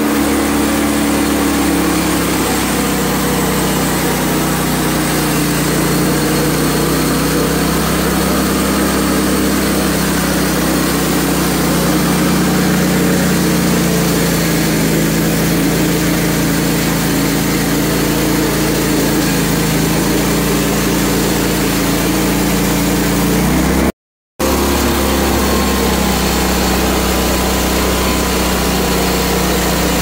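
Engine of a Hud-Son HFE30 Homesteader portable band sawmill running steadily under load while its band blade saws through a hard maple log, with one short break near the end.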